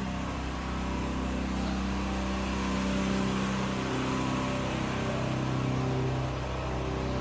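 Steady low machine drone: several low hum tones that come and go, over a constant hiss.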